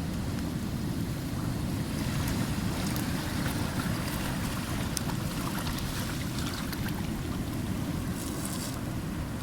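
Seashore ambience: steady wind rumble buffeting the microphone over the wash of the sea, with faint scattered ticks and crackles.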